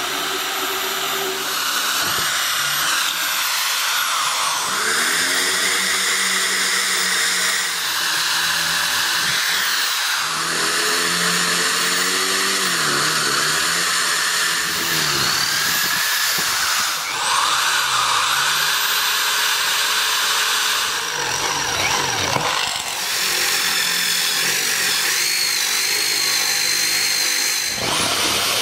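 KPT corded electric impact drill running and boring into wood and bamboo. The motor whine rises and falls in pitch as the trigger speed changes, across several short takes.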